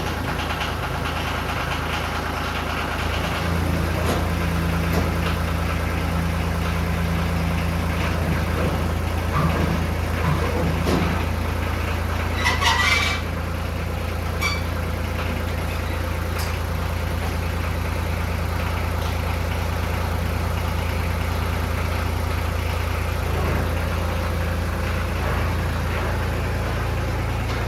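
John Deere 950 compact tractor's three-cylinder diesel engine running steadily at idle, just started after sitting for months. It runs a little harder from about three seconds in until about thirteen seconds, with a brief clatter just before it settles back.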